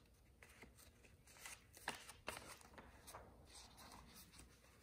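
Faint rustling and soft clicks of a picture book's paper pages being handled and turned.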